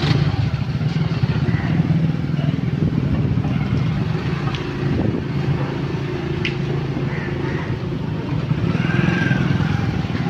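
Motorcycle engine running steadily close by at low speed, a fast even putter, with a couple of brief sharp ticks midway.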